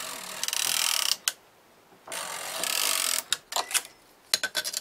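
Brother KH801 knitting machine carriage slid across the needle bed twice, each pass about a second of rattling, then several sharp clicks of the mechanism near the end. The carriage runs freely after cleaning away old, hardened grime.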